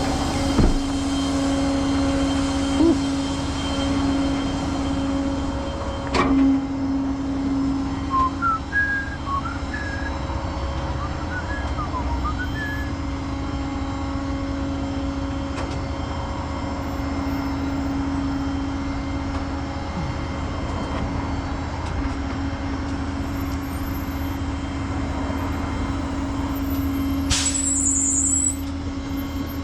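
A tow truck's engine idling steadily, a low rumble with an even hum. There are a couple of sharp knocks early on, and a short hiss about two seconds before the end.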